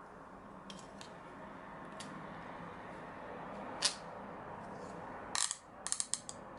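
White plastic phone-holder clamp being handled, its hard plastic parts clicking as the sliding jaw is pulled out and pushed back. There are a few light clicks, a sharper click about four seconds in, and a quick run of clicks near the end.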